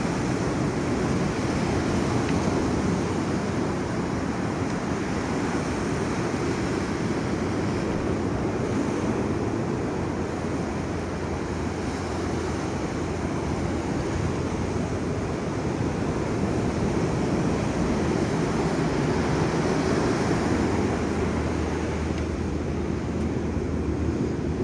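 Ocean surf washing on the beach, a steady rush of noise, with wind buffeting the microphone.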